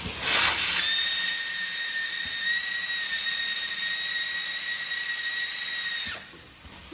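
A12T hot air welding machine running: rushing air with a steady high-pitched motor whine over it. Both cut off suddenly about six seconds in, leaving a fainter hiss of air.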